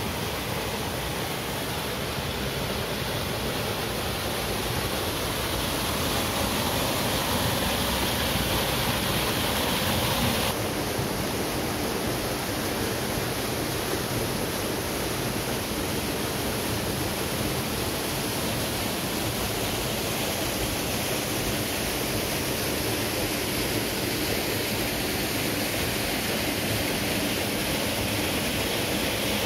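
Waterfall rushing: a steady, dense roar of falling water, with an abrupt slight drop in level about ten seconds in.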